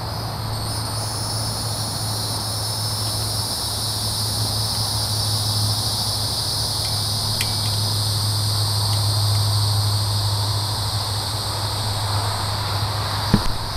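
Steady insect chorus, a high even drone, over a low steady hum. There is a small click about halfway through and a short knock near the end.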